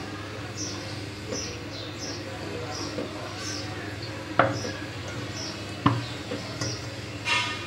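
Wet hands dunking flour-coated chicken pieces in a glass bowl of water, with two sharp knocks about four and a half and six seconds in and a short splash-like rustle near the end. Underneath runs a steady low hum, and a faint high chirp repeats about every two-thirds of a second.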